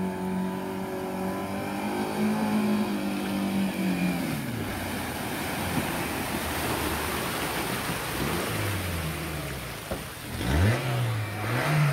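A Maruti Gypsy's engine pulling at steady revs as it wades through deep floodwater, with the loud rushing splash of its bow wave as it passes close by. The engine note drops about three seconds in, and near the end the revs rise and fall again.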